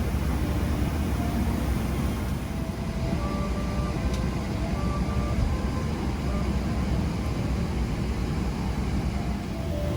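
Steady low rumble and hiss of a Boeing 777-300ER airliner cabin, with faint melodic notes of cabin music over the public-address system.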